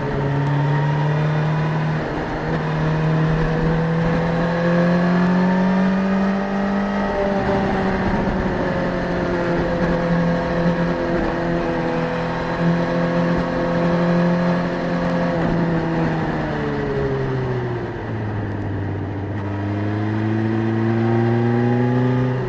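Suzuki GSX-S1000's inline-four engine running under way, heard onboard with wind noise: its pitch climbs and holds, falls away about two-thirds of the way through as the bike slows, then rises again near the end.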